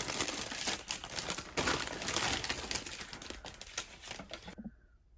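Thin plastic bags holding model-kit runners crinkling and rustling as they are opened and handled, with many small clicks. It stops shortly before the end.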